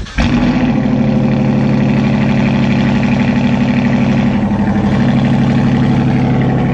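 Car engine running loud and steady at an even pitch, coming in abruptly a moment in.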